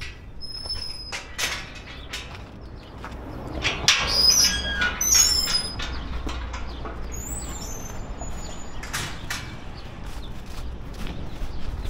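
Small birds chirping in short, high calls, thickest about four to five seconds in and again a little later, over a steady low rumble and scattered light clicks and scuffs of a dog walking.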